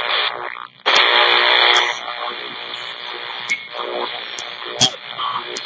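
RadioShack portable radio scanning the AM band as a ghost box. It jumps from station to station with bursts of static and snatches of broadcast audio over a steady high hiss, with sharp clicks as it steps frequency. The loudest burst comes about a second in and lasts about a second.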